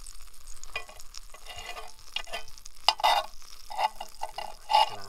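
A knife scraping and clinking against a cast iron pan as cooked trout meat is worked off it, with two sharper knocks, one about three seconds in and one near the end.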